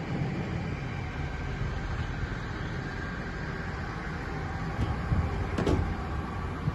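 John Deere 3050 tractor's diesel engine idling steadily, with a sharp click late on.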